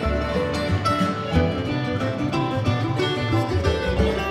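Instrumental break of a jug band swing tune: mandolin and acoustic guitar picking over a washtub bass line.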